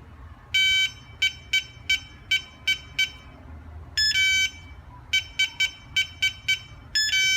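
Electronic keypad locker lock beeping as a code is keyed in to set it: a long beep, six short key-press beeps, a longer beep about four seconds in, six more key-press beeps, then a two-tone beep near the end.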